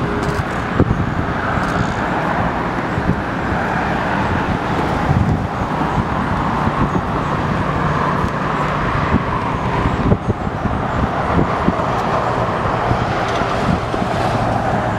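Steady rushing noise of airliner jet engines at taxi power, with a low hum beneath and scattered short clicks.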